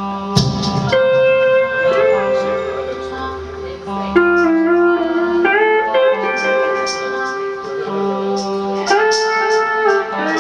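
Steel guitar played with a slide bar: held notes and chords that glide up into each new pitch. A dull thump sounds about half a second in.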